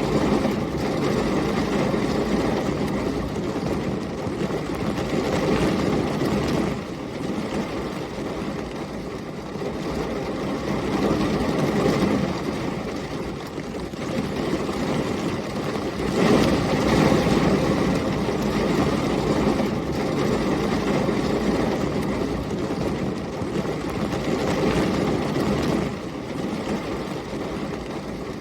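Heavy rain and storm wind, a dense steady rush with a deep rumble that swells and eases every few seconds, loudest about two-thirds of the way through.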